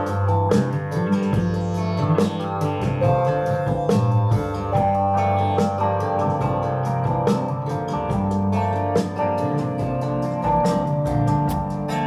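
Music with guitar and drums over a steady beat, played back through a pair of Glasshouse Speaker Kit No. 1 two-way bookshelf speakers with Vifa drivers as a listening test.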